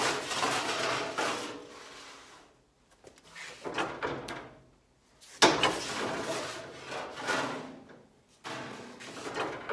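Galvanized sheet-metal duct panel being worked through a cross-breaking machine: rattling, scraping sheet-metal noise in four passes with short pauses between them. The cross break puts a stiffening X in the panel so it won't pop or ping.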